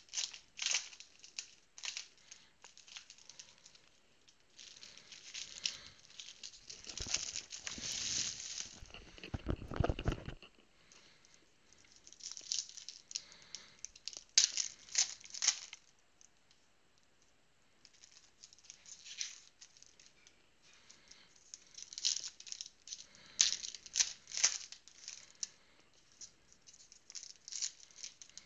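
Trading card packs and cards being handled: foil pack wrappers torn and crinkled, and cards shuffled and flicked in irregular bursts of crackling. About seven to ten seconds in comes a longer, louder rustle with a low rumble.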